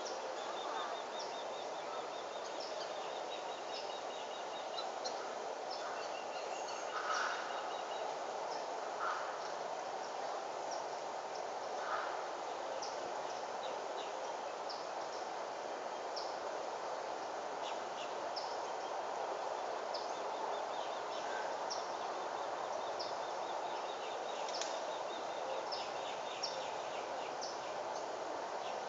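Outdoor ambience: a steady background hiss with small birds chirping in short, high calls throughout and a few rapid trills.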